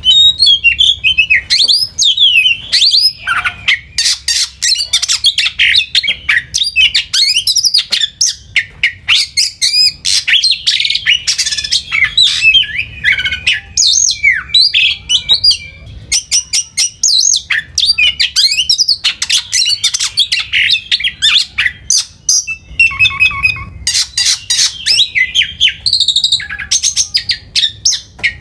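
Caged songbird singing a long, fast, varied song of chirps, trills and sharp notes with only brief pauses: a 'masteran' song recording of the kind played to train other songbirds.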